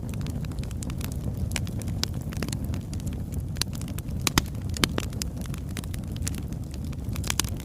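Wood fire burning: logs crackling and popping in quick irregular snaps, over a steady low rumble of flame, with a sharper pop or two about halfway through.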